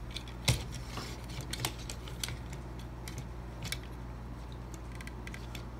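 Hard plastic parts of a Transformers Siege Megatron action figure clicking and knocking as it is handled and transformed: irregular sharp clicks, the loudest about half a second in, over a faint steady low hum.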